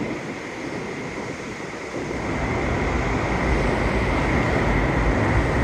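Steady rushing wind noise, with a low rumble that swells and grows louder about two seconds in.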